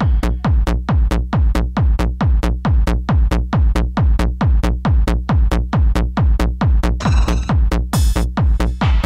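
Hard house/techno DJ mix: a steady, fast kick drum, about four beats a second, over a heavy bass line. A hissing hi-hat layer comes in about seven seconds in.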